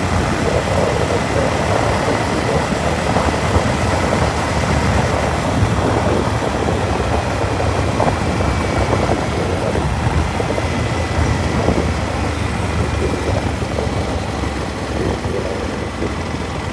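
Yamaha MT-15 motorcycle riding at highway speed: wind rushing over the microphone with the 155 cc single-cylinder engine running underneath. It gets a little quieter near the end.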